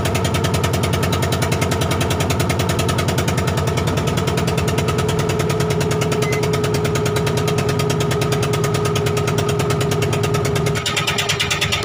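A fishing boat's engine running steadily with an even, rapid pulse, heard from inside the boat's cabin. Its sound shifts about a second before the end, the low part dropping and more hiss coming in.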